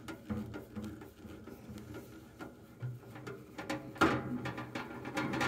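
Screwdriver working a tight self-tapping Phillips screw out of the heater's bottom cover: small irregular clicks and scrapes, with a sharper knock about four seconds in.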